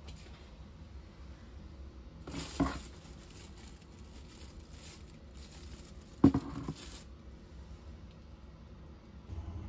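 Thin plastic bin liner in a small metal waste bin crinkling as a hand pulls at it, in two short spells, each with a sharp knock; the second knock, about six seconds in, is the loudest sound.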